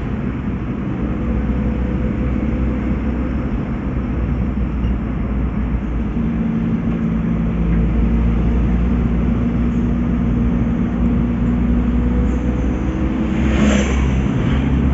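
Road vehicle under way: a steady engine and road rumble, with a clearer engine hum coming in about six seconds in and a short hiss near the end.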